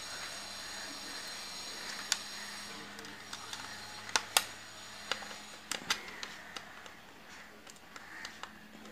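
Scattered sharp clicks and taps of wires and fittings being handled on a plastic electrical switch board, over a steady low hum.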